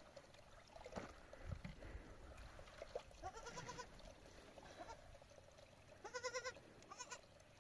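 Faint, high-pitched, wavering bleats of a sheep: one about three seconds in, another about six seconds in, and a short one just after.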